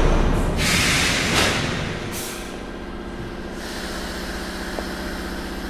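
Metro train: a loud hiss of compressed air in the first second or two, then the carriage's steady electric hum.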